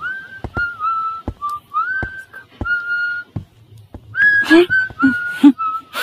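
A man whistling a slow tune in short notes that slide up into each pitch, over footsteps on a wooden floor. The whistling and steps get louder about four seconds in.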